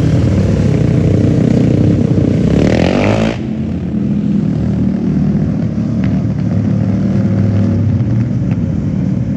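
Engine running steadily, with a rising rev about three seconds in that cuts off abruptly, then running steadily again.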